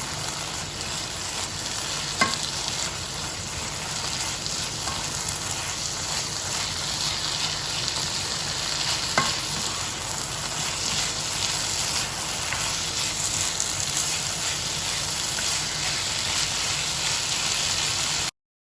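Pork fried rice sizzling in a hot pan while it is stirred, a steady high sizzle with a couple of sharp knocks. The sound cuts off abruptly near the end.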